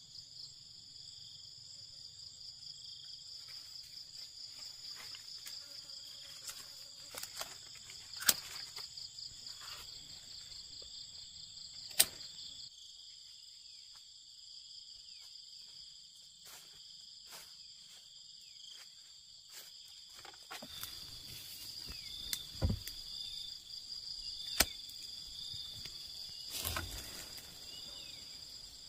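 Insects chirring in a steady high drone, with about five sharp snips of hand pruning shears cutting through fruit stems, spread through, and some rustling of leaves in the second half.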